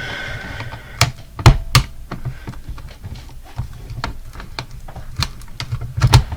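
Hard plastic alarm clock being handled and pried at: irregular sharp clicks and knocks, a few louder ones about a second in and again near the end. Loose parts rattle inside it, over a low rush of heavy breathing into the microphone.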